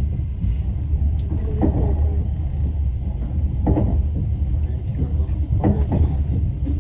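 Passenger train carriage in motion, heard from inside: a steady low rumble of the wheels on the track, with a sharper clatter about every two seconds.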